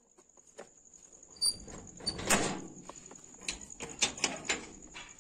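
Metal gate being unlatched and opened: a run of clicks and rattles, a scraping slide about two seconds in, then more clacks of metal on metal.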